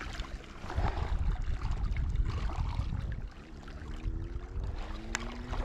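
Wind buffeting the microphone in a low, uneven rumble, with small waves lapping. From about halfway through, a droning hum comes in and rises slowly in pitch.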